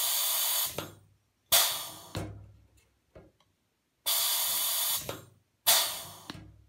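Pneumatic rivet squeezer cycling twice as it sets rivets along the skin of a vertical stabilizer. Each cycle is a steady hiss of compressed air, then sharp bursts of air that die away quickly.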